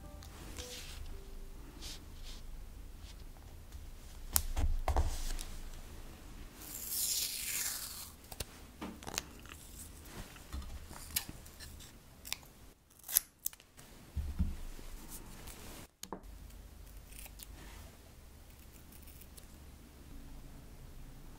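Washi tape handled and peeled off its roll with a drawn-out rasp about seven seconds in, followed by sharp snips and clicks of cutting it with scissors, amid light taps of paper and tools being handled.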